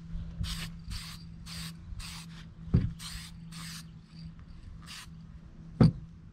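Aerosol spray-paint can hissing in a series of short bursts, about seven, as paint is dusted onto the edge of a sheet-metal car panel. Two dull thumps cut in, one a little under halfway through and a louder one near the end.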